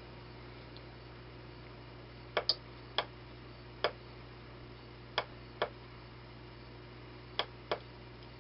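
Eight short, sharp clicks from a hobby sound-detector alarm circuit board being worked by hand. Most of them come in close pairs, spread out over several seconds.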